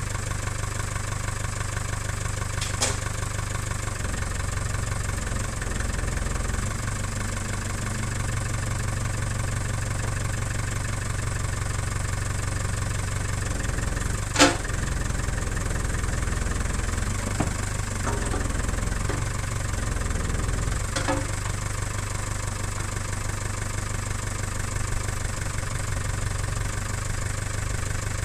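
Old JCB 3 backhoe loader's diesel engine running steadily at idle, with a few sharp metallic clanks, the loudest about halfway through, as the backhoe is worked.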